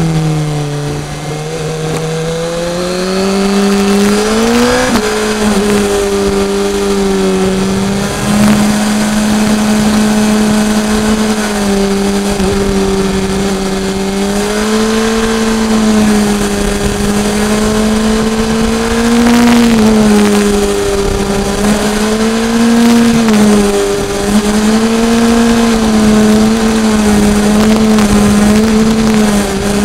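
BMW S1000R inline-four engine running steadily under way, rising in pitch a few seconds in as the bike accelerates, then holding fairly even revs with small swells and a brief dip about two-thirds of the way through. Wind rush throughout.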